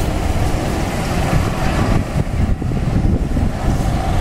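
A line of Club Car golf carts driving past one after another on a paved cart path, a steady low rumble of motors and tyres.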